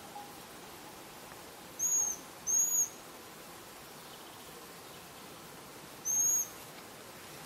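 Young Eurasian pygmy owl calling for its parents with three thin, high-pitched notes, each a short arched whistle of about a third of a second. Two come close together about two seconds in, and a third near the end.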